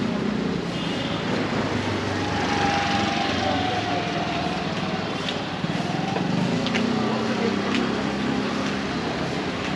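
City street ambience with a small engine running close by, its hum steady under a constant wash of street noise, with a few sharp clicks.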